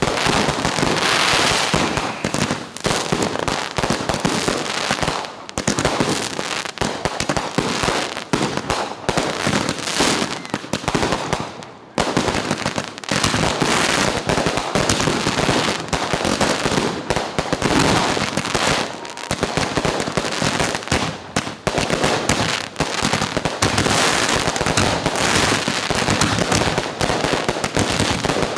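Consumer fireworks going off in a rapid, nearly continuous string of bangs and crackles, with a brief lull about twelve seconds in.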